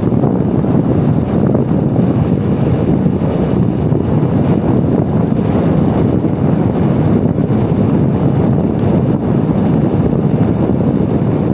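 Steady rush of wind on the microphone from a motorbike coasting downhill in neutral with its engine switched off.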